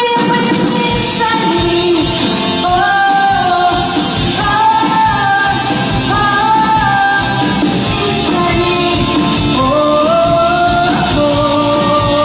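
A rock band playing a song, with a melody sung in long held notes that step and glide between pitches.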